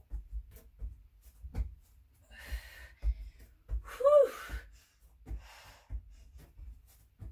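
A woman breathing hard through plank-to-push-up reps: several heavy breaths, one with a short voiced grunt about four seconds in. Soft low thumps of her hands on the exercise mat are heard in between.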